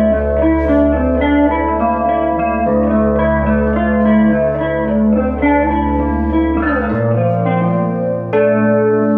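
Electric guitar played through an amp: a low note held under a repeating pattern of picked higher notes. The low note changes about seven seconds in, and the notes above shift again just before the end.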